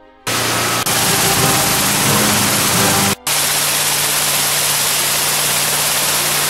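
High-pressure washer with a rotary surface-cleaner head blasting moss and grime off a concrete floor: a loud, steady hiss of water spray over a low motor hum. It starts abruptly and cuts out briefly about three seconds in.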